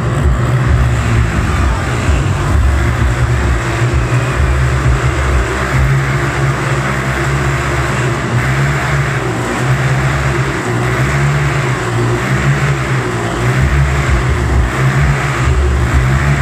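Several motorcycles riding continuously inside a steel mesh globe of death, the engines' noise swelling and fading as they circle.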